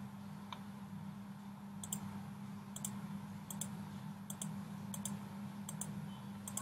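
Computer clicks: a short, sharp pair of clicks, press and release, about every three-quarters of a second from about two seconds in. A steady low hum runs underneath.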